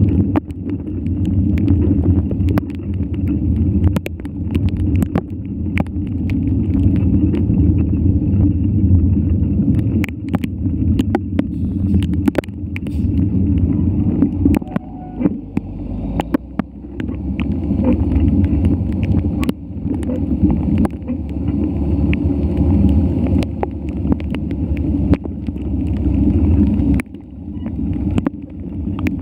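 Wind buffeting the microphone of a mountain bike riding a rough trail, with frequent sharp knocks and rattles from the bike over the ground. The noise dips briefly near the end.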